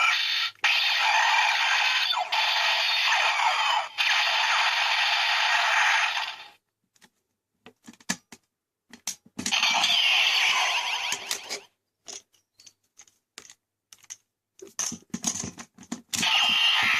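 DX Break Gunner toy playing electronic sound effects through its small speaker, in long bursts with sweeping tones, with sharp plastic clicks between them as a Shift Car is loaded and the gun's parts are worked.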